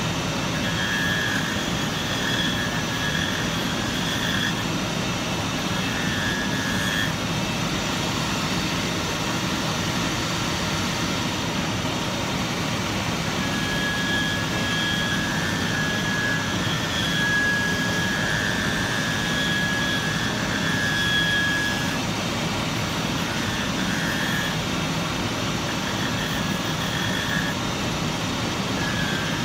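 Shoe-repair finishing machine running steadily, with a rushing whoosh and a high whine that comes and goes as the work is pressed to it.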